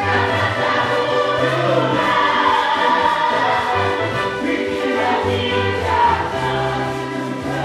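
A group of worship singers singing a gospel song together into microphones, over a keyboard accompaniment with a bass line that moves in held notes.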